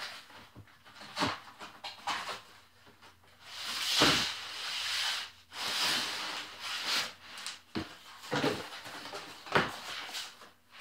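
Cardboard packaging being handled: a box sleeve and a folded cardboard insert pulled off, unfolded and slid across a metal-topped bench. It comes as irregular rustles and scrapes with a few knocks, and the longest, loudest scrape is about four seconds in.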